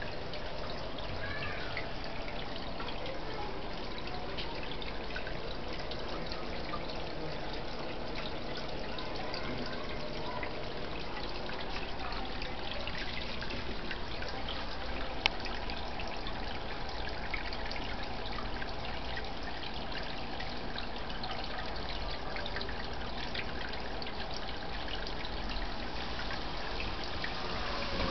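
Small rock waterfall spilling into a garden fish pond: steady trickling and splashing water. A single sharp click cuts through about halfway.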